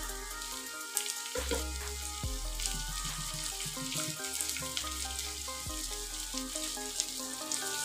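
Chopped tomatoes and onions sizzling in hot oil in a non-stick pan, stirred briefly with a silicone spatula at the start, with soft background music.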